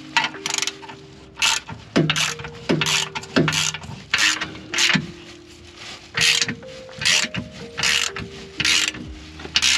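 Ratchet wrench clicking through a series of short strokes, a dozen or more at uneven spacing, tightening the bolt of a differential support brace.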